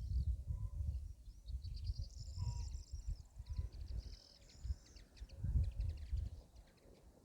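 Wind gusting across the microphone as a low, uneven rumble, while small birds chirp and twitter, with quick trills about two to five seconds in.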